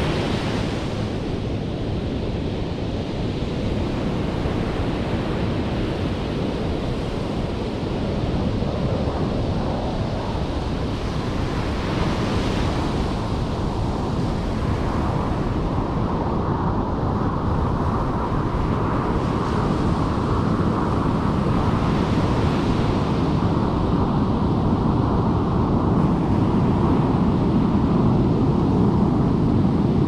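Ocean surf breaking on a sandy beach: a continuous rushing wash of waves, with a fresh break hissing up every several seconds.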